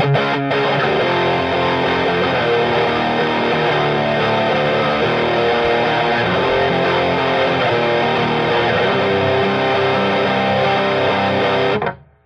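Distorted electric guitar played through an EGO TM2 OD100 on its lead sound, with sustained overdriven notes and chords. It stops abruptly just before the end.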